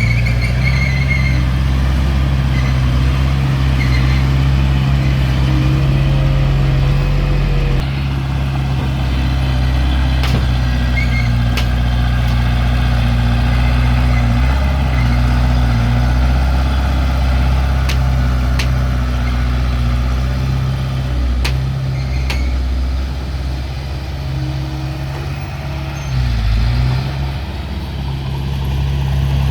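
Heavy diesel engine of earthmoving equipment running steadily with a low hum, with a few sharp metallic clicks around the middle and a brief dip in engine pitch near the end.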